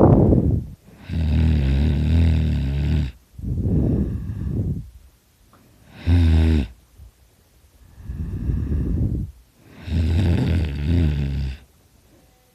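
A person in deep sleep snoring loudly: about six rattling snores in a row, each one to two seconds long, with short silent pauses between breaths.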